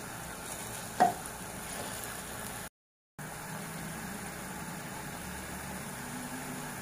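Steady frying hiss of onion, garlic, ginger and tomato cooking in oil in a clay pot. A single sharp knock about a second in comes from the wooden spatula striking the pot. The sound cuts out briefly in the middle.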